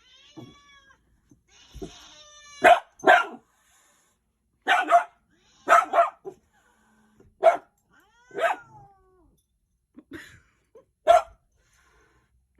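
A dog barking in short, sharp barks, about ten of them in irregular ones and pairs, while a cat meows between them during a dog-and-cat squabble.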